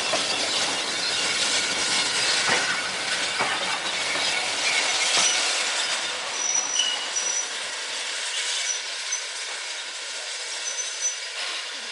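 Passenger railway coaches rolling past on the rails, wheels clicking over rail joints, the rumble falling away after the last coach passes about six seconds in. Brief high wheel squeals come a few times in the second half.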